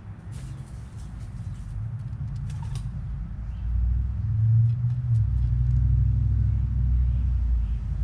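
A low rumble builds about three and a half seconds in and stays loud. Faint sharp clicks sound over it in the first three seconds.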